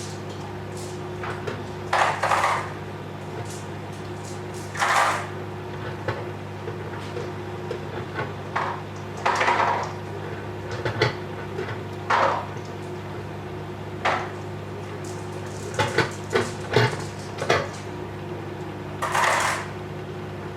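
Whirlpool microwave oven running with a steady hum while popcorn kernels pop inside it: about a dozen scattered pops, some coming in quick pairs or small clusters.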